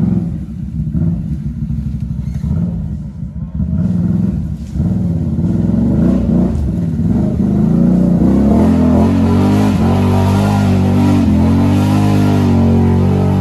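A Can-Am ATV's V-twin engine revving, its pitch rising and falling. It gets louder about five seconds in and again about eight seconds in, then holds at high revs.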